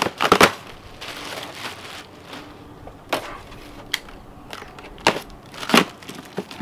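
Plastic bag crinkling as it is pulled out, then a knife scraping and slicing through packing tape on a white foam shipping box in a few separate sharp strokes.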